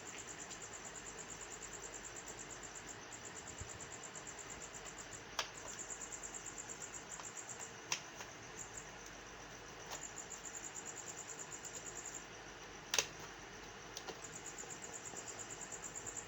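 Crickets chirping in the background, a fast pulsing high trill that carries on throughout. Over it come a few sharp clicks, the loudest about thirteen seconds in: a RAM module being handled and snapped into its motherboard slot.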